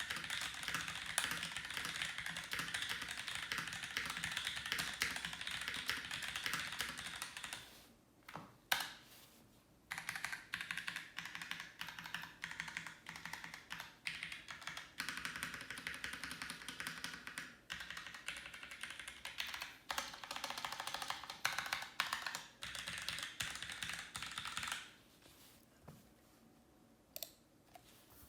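Fast, continuous typing on a keyboard: a dense run of key clicks. It pauses about eight seconds in, resumes about two seconds later, and stops near the end, leaving only a few stray keystrokes.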